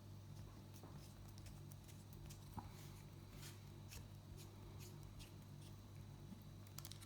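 Faint scattered clicks and scratches of a small screwdriver undoing the tiny screw in the back of a plastic key fob casing, over a steady low hum.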